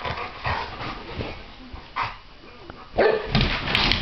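Two dogs at play: a few short barks, then from about three seconds in a loud scuffle as they wrestle, paws scrabbling on a hardwood floor.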